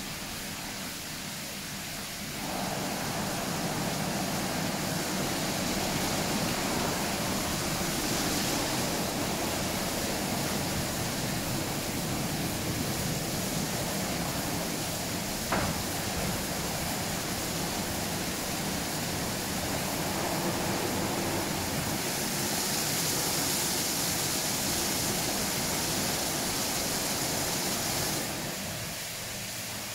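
Automatic roll-over car wash at work: water spray and spinning brushes rushing over a car in a steady noise. It swells about two and a half seconds in and drops back near the end, with one short click about halfway through.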